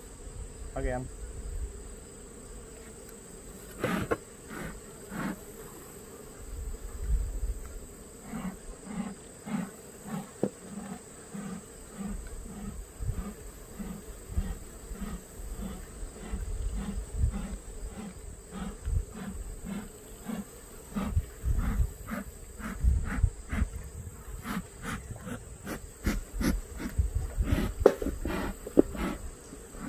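Honey bees buzzing around an open Langstroth hive, mixed with scattered clicks and knocks of hive boxes and frames being handled.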